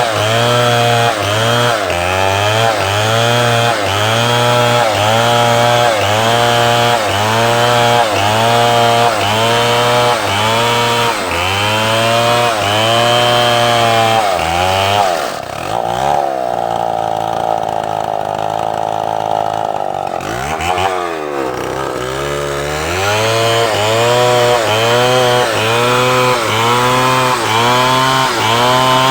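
Chainsaw cutting into wood, its engine pitch dipping and recovering about once a second as the chain bites. About halfway through it holds a steady pitch for a few seconds, drops low briefly, then goes back to the same rhythmic cutting.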